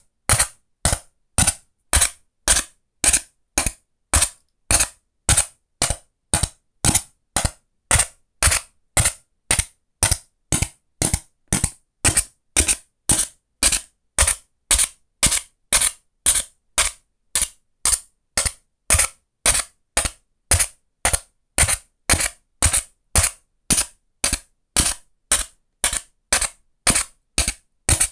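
A wooden toothpick being punched through a Styrofoam foam tray: short sharp pops, evenly spaced about twice a second.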